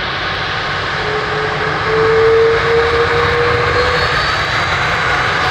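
Airbus A330-243's two Rolls-Royce Trent 772B turbofan engines running at taxi power as the jet turns, a steady jet roar with a faint whine that edges up in pitch from about a second in and fades near the end.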